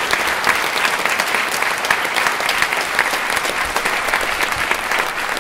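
Audience applauding, many hands clapping densely at a steady level.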